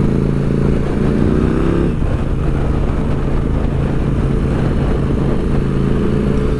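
KTM 890 SMT's parallel-twin engine running under way through a Vandemon titanium aftermarket exhaust. Its pitch climbs a little about a second in, then holds steady. It is a well-rounded sound with no drone.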